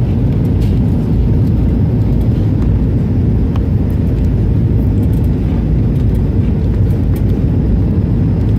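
Steady low rumble of a moving vehicle heard from inside, even and unchanging throughout.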